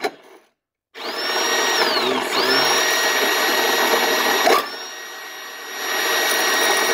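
Motor-driven piston ring filer running, its grinding wheel filing the end gap of a piston ring. The motor whines up to speed about a second in, slows and spins up again near two seconds in, drops off for about a second near the end and picks up once more.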